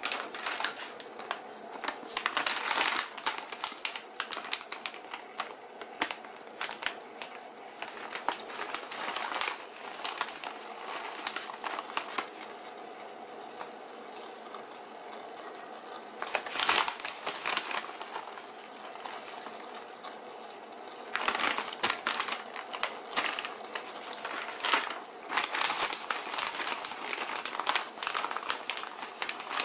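A plastic bag of finely shredded cheddar cheese crinkling in irregular bursts as a hand reaches in and sprinkles the cheese, over a faint steady hum.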